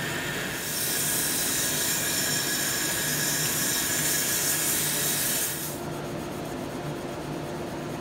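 Wood lathe running with a thin olive wood spindle spinning. At first a tool cuts the wood; from about a second in, sandpaper held against the spinning wood makes a loud, steady hiss. The hiss stops before six seconds, leaving the lathe's motor hum.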